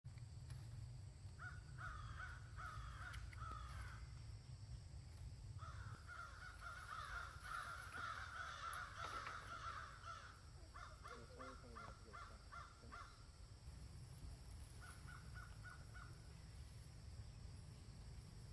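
Harsh animal calls in bouts: runs of repeated cries, a quick pulsed series about halfway through and a few short calls near the end, over a faint steady low rumble.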